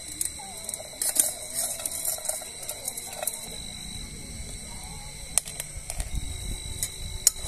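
Steady high-pitched drone of night insects, with scattered small clicks and knocks of handling, and a low rumble from about halfway.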